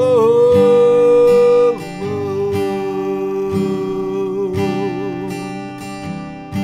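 Acoustic guitar strumming chords, with a voice holding a long sung note that steps down in pitch about two seconds in and wavers before fading out.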